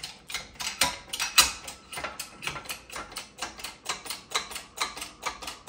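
Hydraulic bottle jack in a shop press being pumped by its lever handle: a rapid, uneven run of metallic clicks and rattles, several a second, as the press closes down on the work.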